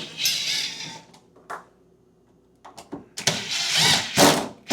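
Cordless drill-driver running in two short bursts, one in the first second and a longer one near the end, turning the screws of a refrigerator door hinge.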